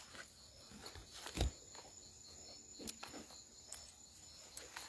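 Faint footsteps and phone-handling noise, with scattered light clicks and one low thump about a second and a half in.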